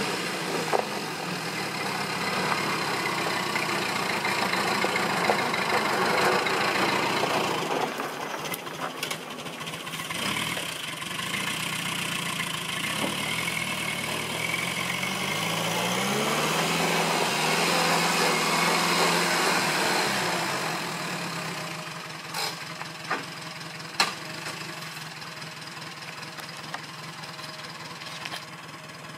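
Small old tractor's engine running as it pulls a loaded trailer. The engine note rises about halfway through, then settles lower, with two sharp knocks later on.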